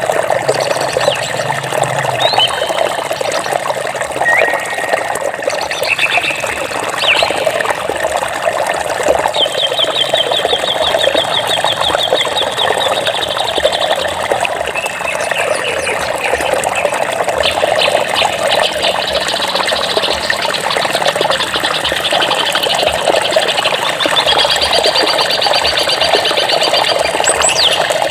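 A steady rush of running water with birds chirping and calling over it. A rapid high trill comes about ten seconds in, and another near the end.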